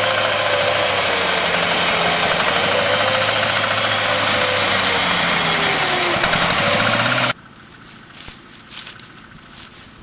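Boaz mini combine harvester's engine and threshing machinery running steadily and loud, with the engine note wavering and dipping a little about six seconds in. About seven seconds in the sound cuts off abruptly, leaving faint rustling and light clicks.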